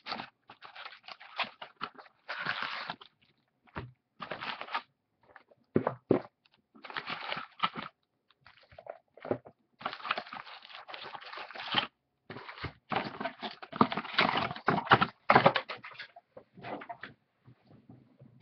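Foil trading-card pack wrappers crinkling and tearing as packs are opened and handled, in irregular bursts with short pauses between them.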